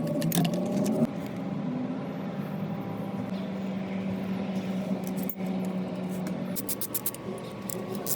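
A small electric motor running with a steady hum, shifting slightly about a second in, with a run of quick clicks near the end.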